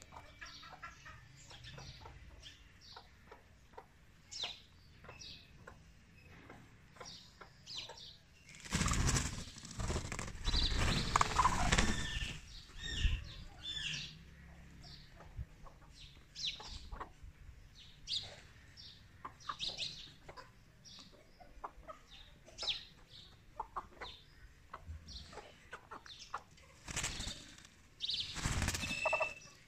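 A peacock and a hen fighting: two bouts of loud wing flapping, one starting about nine seconds in and lasting some four seconds, another near the end. Short high bird chirps come and go throughout.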